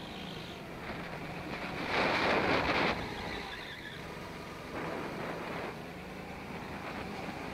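Go-kart engine running under way, with wind buffeting the microphone. About two seconds in a louder rush of noise lasts roughly a second.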